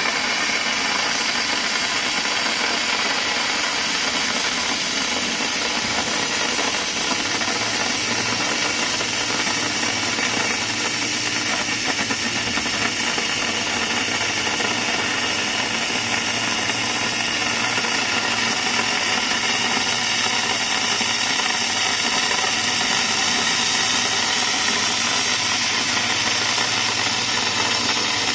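20 kW IPG fiber laser cutting 50 mm mild steel with oxygen assist gas: a steady, loud hiss of the oxygen jet burning through the thick plate. A low hum comes in about seven seconds in.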